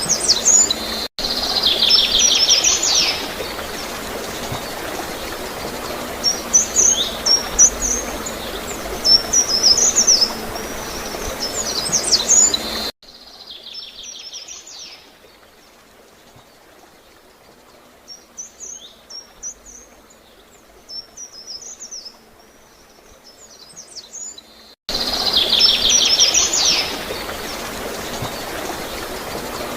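Small birds chirping and trilling in short repeated phrases over a steady background of gurgling running water. About halfway through, the whole sound drops suddenly much quieter, then comes back suddenly at full level near the end.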